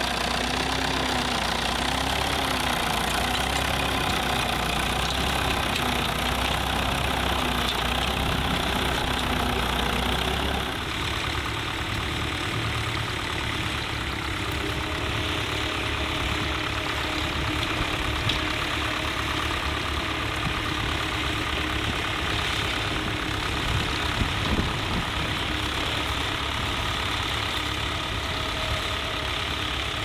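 Vintage tractor engines running steadily while pulling ploughs: first a red tractor, then, after an abrupt change about ten seconds in, a grey Ferguson TE20 with a mounted plough.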